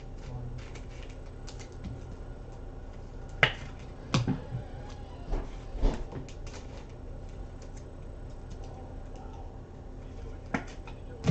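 Trading-card packs and cards handled on a tabletop: a few sharp taps and clicks, the loudest about three and a half, four and six seconds in, with softer clicks between.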